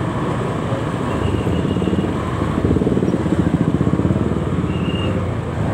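Motorcycle engines running in slow, dense motorbike traffic. A rapid pulsing grows louder for a couple of seconds in the middle.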